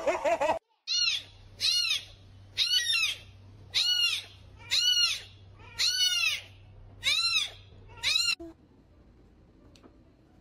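Very young kitten mewing repeatedly: a string of high-pitched mews, each rising and falling in pitch, about one a second, stopping about eight seconds in.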